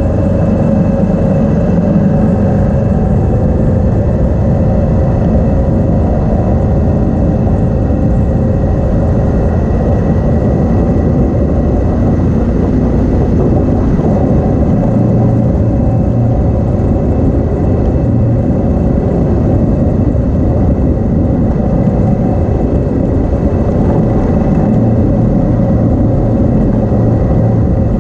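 Motorcycle engine running steadily at cruising speed on a dirt road, mixed with wind and road noise at a bike-mounted microphone.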